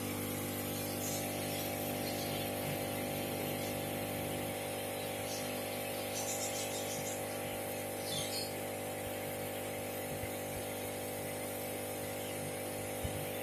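Steady low hum from aquarium aeration: an air pump driving a sponge filter, with faint bubbling and a few light ticks.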